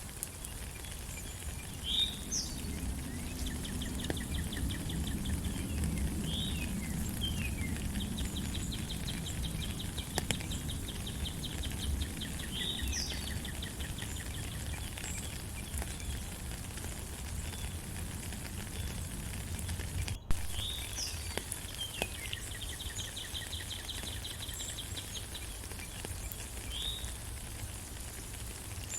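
Steady rain with birds calling over it: short sweeping chirps and a few long, even trills that run for several seconds at a time. A single sharp click about two-thirds of the way through.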